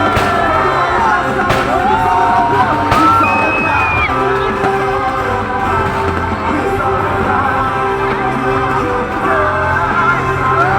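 Music playing over a crowd yelling and whooping, with three firework bangs in the first three seconds.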